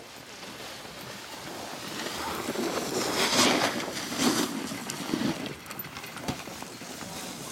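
Snowboard edge scraping across snow as the rider skids to a stop, a noisy scrape that builds and is loudest between about three and four and a half seconds in, with smaller scrapes after.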